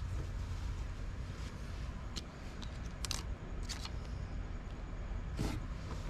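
Faint handling sounds of small pieces being worked by hand: a few light clicks and rustles, about four in all, over a steady low hum.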